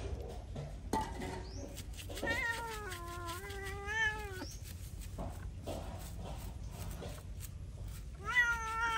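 Wet feral tabby cat yowling while being bathed: one long, wavering, drawn-out call about two seconds in, and a second one starting near the end.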